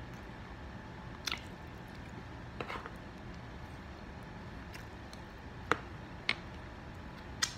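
Close-up mouth sounds of someone eating soft cheese eggs: quiet wet chewing with about five sharp little smacks or clicks spread through it.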